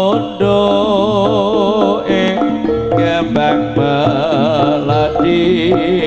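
Live East Javanese jaranan gamelan music: a wavering, ornamented melody line over held struck metal notes and a running drum pattern.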